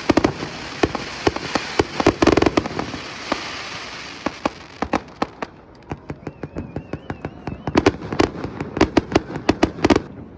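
Fireworks display going off: a rapid string of sharp bangs and crackles, densest at the start and again near the end, with a wavering high whistle in the middle.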